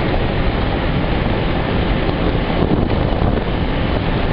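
Steady rush of wind on the microphone of a moving motorcycle, with the motorcycle running underneath at a constant pace.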